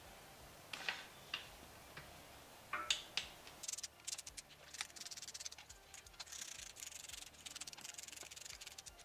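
Hand ratchet clicking as the differential cover bolts on a GM 9.5" 14-bolt axle are run down. A few separate clicks and knocks come first, then from about a third of the way in there is rapid, continuous ratchet clicking.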